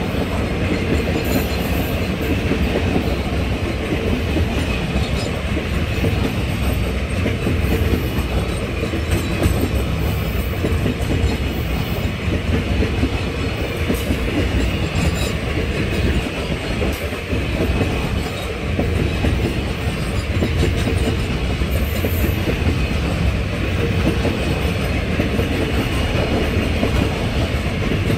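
Freight wagons rolling past at close range: a steady, loud rumble of steel wheels on the rails with clacking over the rail joints.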